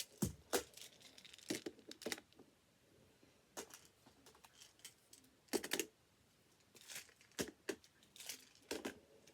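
Toy building pieces (plates and squares) being handled and set in place: scattered short clicks and clatters with gaps between, about ten in all, the loudest near six seconds in.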